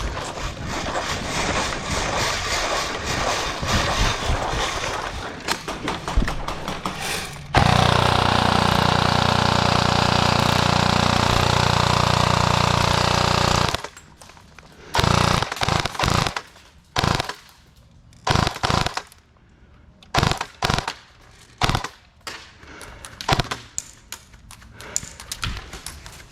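Airsoft guns firing on full auto. Rattling fire gives way about eight seconds in to one long, loud, continuous burst of about six seconds that cuts off suddenly, followed by a string of short separate bursts.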